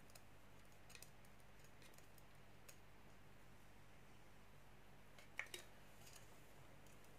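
Near silence over a low steady hum, with a few faint clicks from fingers handling a small electronics board in a clear plastic case, and two sharper clicks close together about five and a half seconds in.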